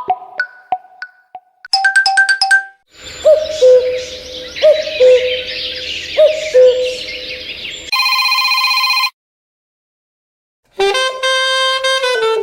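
Huawei Y3 (2017) ringtones and alert tones played one after another: short chime notes, then a birdsong tone with dense chirping and about four low falling hoots, then a steady electronic beep that cuts off suddenly. After a pause of about a second and a half, a new melody begins near the end.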